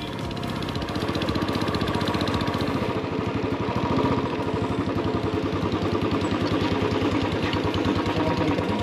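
Royal Enfield Classic 350's single-cylinder engine running with a steady, even pulsing beat.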